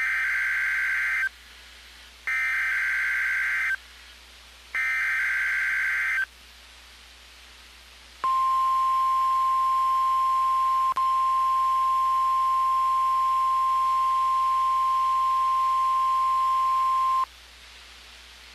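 NOAA Weather Radio Required Weekly Test signal: three bursts of SAME (Specific Area Message Encoding) digital header data, each about a second and a half of buzzy warbling data tones, followed by the steady 1050 Hz warning alarm tone. The alarm tone is held for about nine seconds, with a brief click partway through, and then cuts off.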